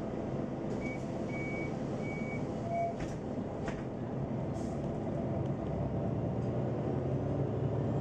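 Neoplan N 4416 Centroliner city bus heard from inside while driving: a steady engine and road hum. About a second in there is a run of four short high beeps, and soon after come two sharp clicks.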